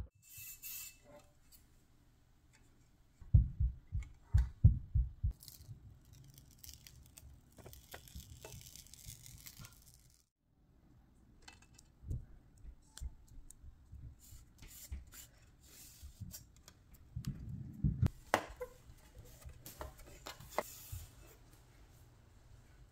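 Hands working a plastic paper towel holder bar and its double-sided mounting tape on a countertop: a quick run of knocks of the plastic against the counter a few seconds in, rustling and peeling of the tape's backing, light taps, and another group of knocks near the end.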